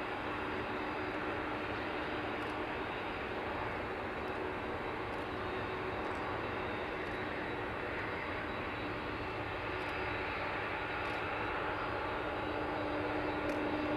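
Jet engines of a Boeing 767-300ER running, a steady noise with a humming tone that grows stronger and louder over the last few seconds.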